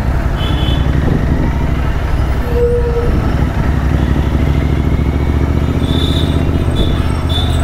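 Motorcycle engine running steadily under way, a dense low rumble; a short tone sounds about three seconds in.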